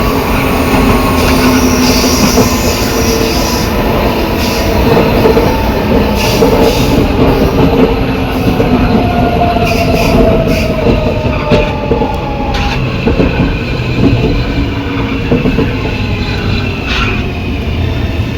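Metro train's traction motor and inverter whining while braking, the tones sliding slowly down in pitch, with an unusual growl from the car's reduction gearbox under the running noise. A few scattered clicks are heard.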